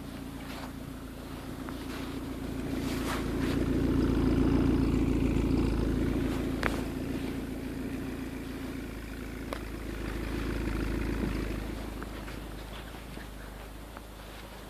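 Ford Granada 2.0 L engine idling steadily while warming up after a cold start, heard from outside the car. It grows louder towards the tailpipe about four seconds in, fades, and swells once more, with a few light clicks.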